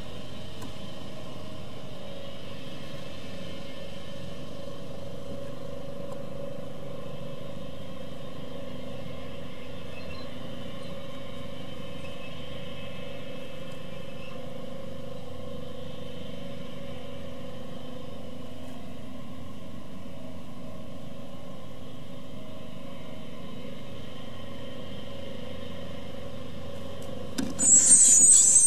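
A steady low hum with a few faint steady tones; near the end, great tit nestlings suddenly break into loud, high-pitched begging calls, the brood's call for food as a parent arrives.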